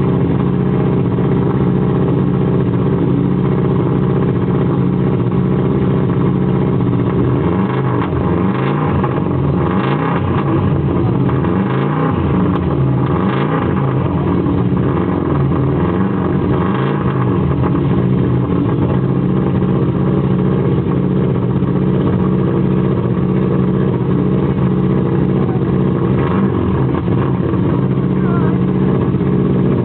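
Subaru Impreza WRC's turbocharged 2.0-litre flat-four engine idling as it warms up, with a few short blips of the throttle in the middle and one more near the end.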